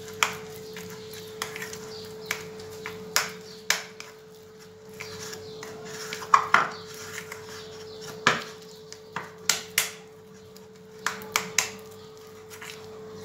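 Irregular sharp clicks and knocks of hands working a sticky flour-and-boiling-water dough in a ceramic bowl, fingers and bowl knocking against each other, over a steady hum.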